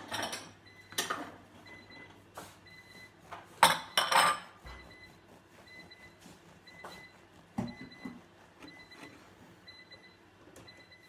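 Knife sawing through a soft white loaf on a wooden cutting board, in a few separate rasping strokes with the crust crunching. The loudest pair of strokes comes about four seconds in.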